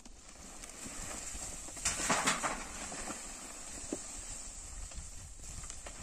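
Scattered sharp knocks and clatter, with a denser burst of clattering about two seconds in and a single louder knock near the four-second mark.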